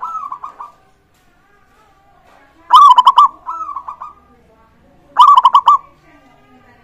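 Zebra doves (perkutut) cooing in short phrases of quick repeated notes. Two loud phrases come about 3 and 5 seconds in, with softer phrases at the start and between them.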